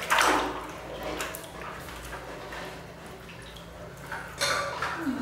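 Bathwater splashing and dripping in a large basin as a baby monkey is bathed and climbs out, with a loud splash at the start and another about four and a half seconds in.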